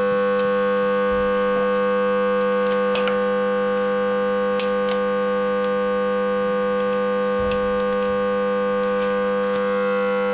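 A steady, unchanging drone of several held tones, with a few faint clicks over it.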